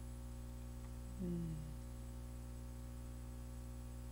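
Steady electrical mains hum on the recording. About a second in there is a brief, soft falling murmur from a voice.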